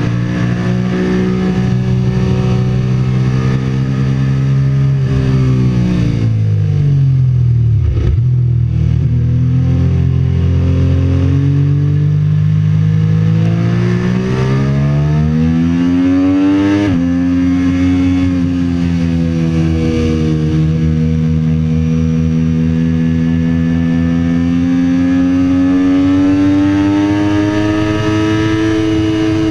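Sportbike engine heard from onboard while ridden hard. The engine note falls as the rider slows for a corner about six to eight seconds in, climbs as the bike accelerates out, drops suddenly at an upshift about seventeen seconds in, then climbs again slowly.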